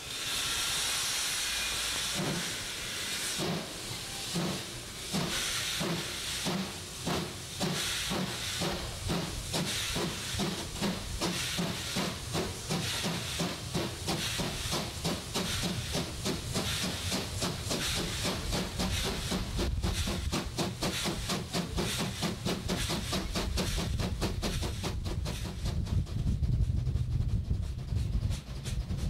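Steam tank locomotive OKMJ 14 pulling away: a rush of steam hiss at the start, then exhaust chuffs that begin slowly about two seconds in and quicken steadily as the engine gathers speed. A low rumble builds under the beats in the second half.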